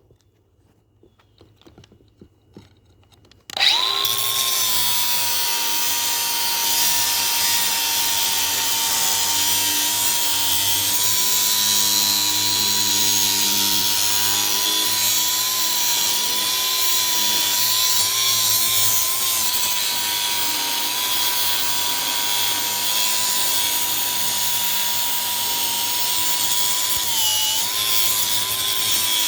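Electric power tool motor that starts about three and a half seconds in and then runs steadily with a high, even whine. Its pitch dips briefly near the end, as if it were momentarily loaded.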